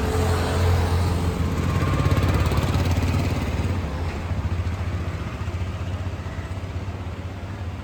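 A motor vehicle engine running with a steady low rumble, slowly getting quieter over the seconds.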